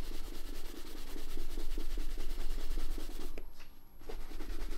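Soft-bristled shoe brush stroked rapidly back and forth over a black leather Red Wing 9874 work boot, a fast even brushing to finish and buff the freshly oiled leather. It pauses briefly about three and a half seconds in, then carries on.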